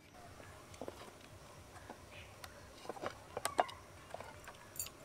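Faint scattered clicks and light knocks from the frozen ice cream container and scoop being handled, with a few sharper ones about three seconds in.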